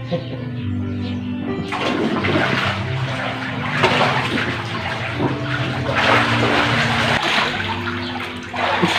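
Water splashing and sloshing in an inflatable paddling pool, starting suddenly about two seconds in and coming in uneven surges, over background music with held notes.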